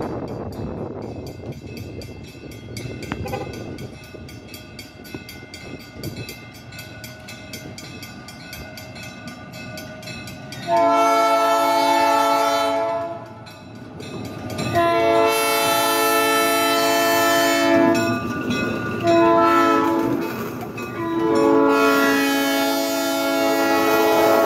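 Diesel locomotive approaching with its engine running low, then sounding its multi-tone air horn in the grade-crossing pattern: two long blasts, a short one and a final long one that is still sounding as it reaches the crossing.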